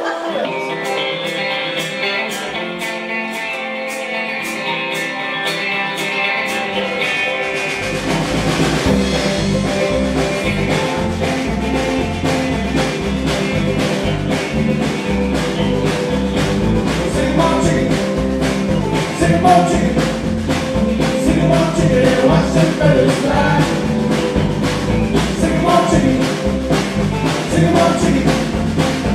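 Live country-rock band playing. Electric guitars open over a steady high ticking beat, then the bass and full drum kit come in about eight seconds in, with a singer on top.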